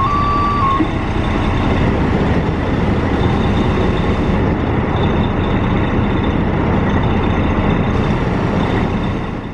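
Fire truck engine running with a steady, loud low rumble. A high tone that steps back and forth between two close pitches stops about a second in, and the engine sound fades out near the end.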